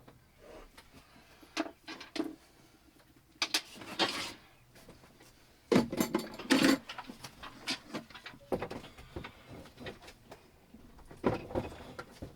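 Scattered clicks, knocks and rattles of parts and tools being handled, with the loudest clatter about six seconds in.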